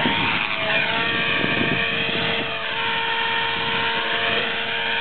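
Align T-Rex 450 SE electric RC helicopter in flight: a steady whine from its motor and gears over rotor noise. Some of the higher tones sweep down and back up as it flies.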